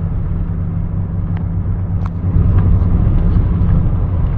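Boat motor running steadily, a low rumble, while the boat moves the floating dock; it grows somewhat louder a little after two seconds in.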